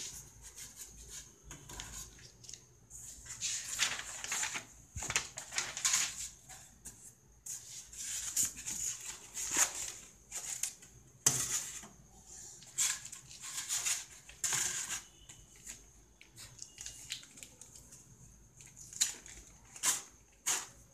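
Polystyrene foam packaging and a plastic bag rustling and scraping in irregular bursts, with a few sharper clicks, as a laptop LCD panel is unpacked from them.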